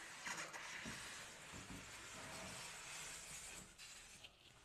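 Faint rustling and scraping of a large cardboard shipping box as it is slid up and off a PC case packed in foam end caps.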